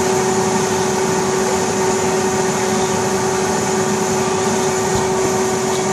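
Electric air blower running to keep an inflatable game arena inflated: a steady motor hum over an even rush of air.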